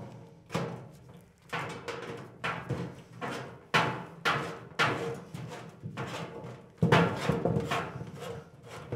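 Hand seamer clamping and folding the flange of a galvanized sheet-metal plenum end cap tight: a series of sharp metallic clanks, roughly a dozen, about one every half second to second, each ringing briefly as the hollow metal box booms.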